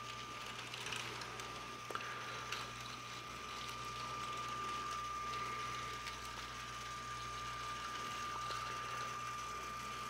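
Lego monorail train's motor and gears running as it travels along the elevated rack track: a steady high whine with light gear clatter and a few clicks in the first few seconds.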